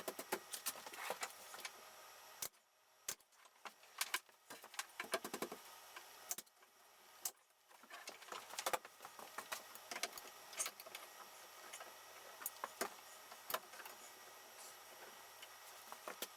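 Irregular clicks, taps and light knocks, a few ringing briefly, from things being handled in a woodworking shop.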